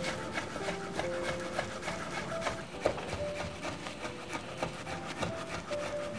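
Chef's knife finely chopping beef sirloin on a wooden cutting board: a quick, uneven run of blade knocks against the wood, several a second. Gentle background music with held notes plays underneath.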